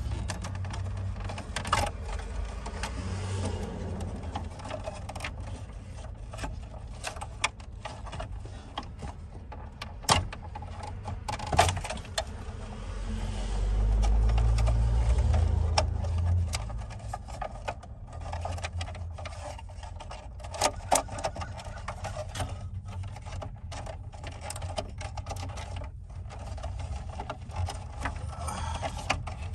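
Handling noise from work on a car's dashboard: scattered clicks, knocks and rustling of hands on plastic parts and a loose microphone, with two sharper knocks about 10 and 12 seconds in. Under it runs a steady low rumble that swells for a few seconds around the middle.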